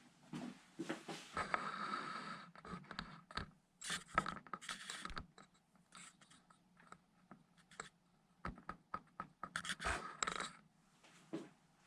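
Irregular scratching and scraping with scattered light clicks and taps as small parts and tools are handled on a workbench.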